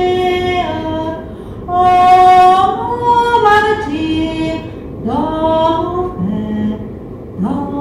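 A woman singing a slow French song unaccompanied, holding long notes that glide from one pitch to the next, with short breaths between phrases. The word 'vengée' is sung near the start.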